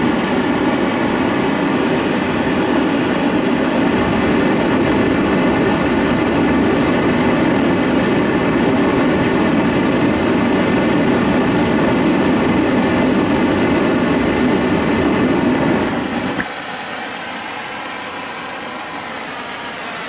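Homemade venturi propane burner running with a long open flame, a loud steady rush. About three-quarters of the way through, the sound drops sharply to a quieter steady hiss as the big flame is shut down.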